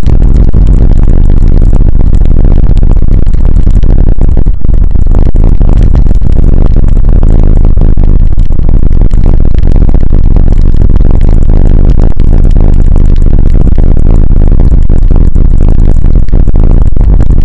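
Loud, distorted rumble and rattling of a vehicle driving over a rough, partly gravel road, picked up by a mounted dashcam. The sound is steady, with a constant low rumble and many small knocks and clatters.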